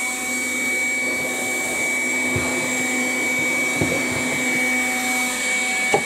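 Makita DCL180 18V cordless stick vacuum switched on and running steadily, its motor giving a constant high whine over the hiss of rushing air as the nozzle sucks up sawdust, with a couple of brief low whooshes as debris is drawn in.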